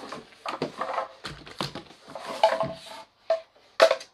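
Hollow plastic parts of a baby rocker knocking and clattering as the handle frame is turned and pushed into its base. The knocks are irregular, and the loudest comes near the end.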